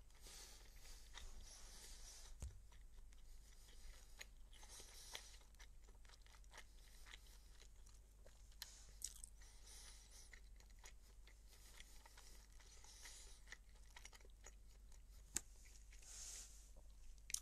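Near silence with faint chewing and crunching close to the microphone and scattered small clicks. A sharper click comes about fifteen seconds in.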